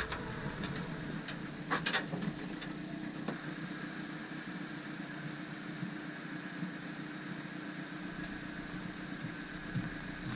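Steady mechanical running hum with a faint steady tone, and a few sharp clicks about two seconds in.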